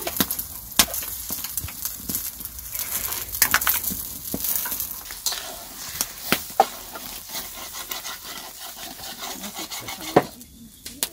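Egg frying in a pan over a campfire, sizzling, with many sharp clicks and scrapes of a utensil against the pan as it is stirred.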